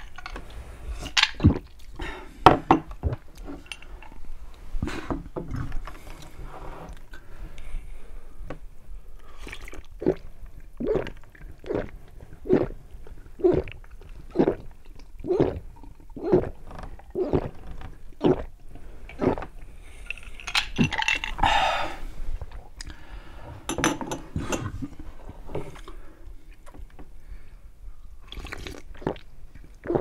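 Close-up gulping of iced carbonated soda from a glass: a steady run of swallows about one a second, with glass and ice clinking and knocking between drinks.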